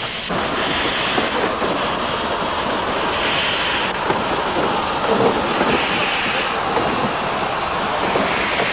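Ex-Réseau Breton steam tank locomotive E327 moving slowly, with a steady hiss of escaping steam that surges louder three times about two and a half seconds apart, and scattered clanks from the running gear and wheels.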